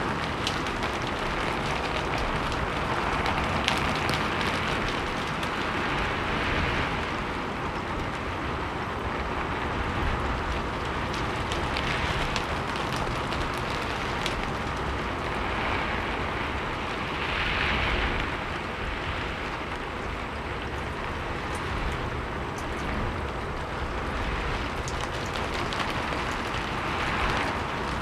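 Rain falling steadily on a roof and walls, with dense pattering and drops ticking, swelling and easing in waves as gusts of wind drive it against the surfaces.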